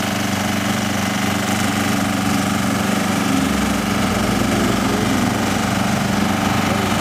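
An engine running steadily at an unchanging speed, with a deeper rumble joining about three and a half seconds in.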